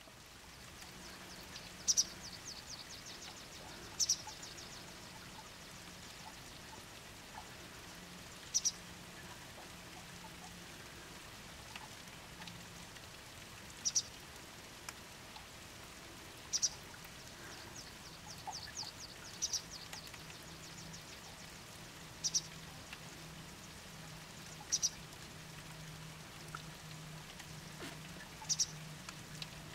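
Juvenile pied wagtail giving short, sharp, high-pitched calls every few seconds, nine in all, over a steady background hiss. The owner takes them for begging calls for food.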